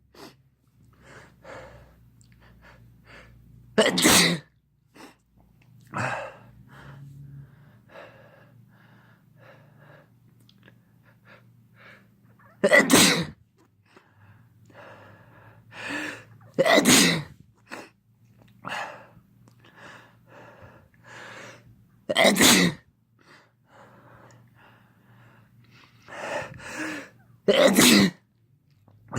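A man sneezing over and over, induced sneezes: five loud sneezes spaced several seconds apart, with quieter sniffs and in-breaths between them.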